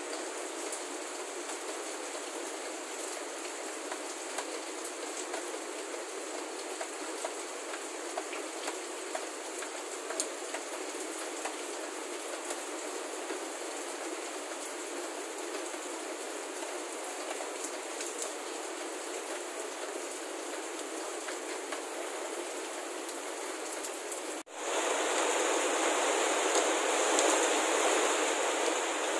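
Heavy rain falling steadily, an even hiss with scattered drop ticks. About 24 seconds in it cuts abruptly to a louder, fuller downpour.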